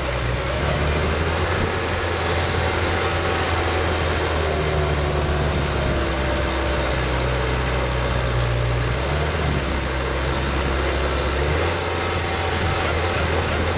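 Truck-mounted Highway HHF pressure digger running under load as its auger bores into the ground: a steady low engine drone with a higher whine that drifts slowly in pitch. The engine note shifts a couple of times as the load changes.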